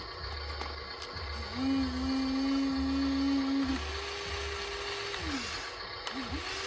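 Small electric gear motor of a radio-controlled construction toy whining as it runs. It holds one pitch for about two seconds, steps up to a higher whine, then winds down. Near the end come two short spin-ups and spin-downs.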